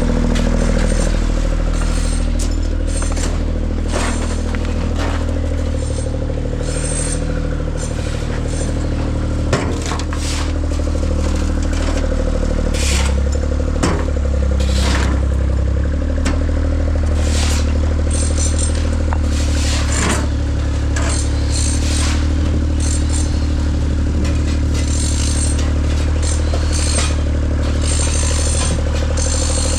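A large engine running steadily, with frequent scrapes and clattering on top of it.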